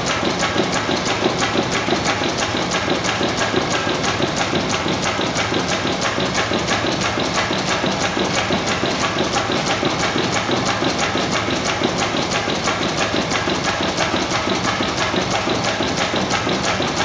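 1904 Deutz E12 stationary gas engine running steadily, with an even clatter of about four beats a second.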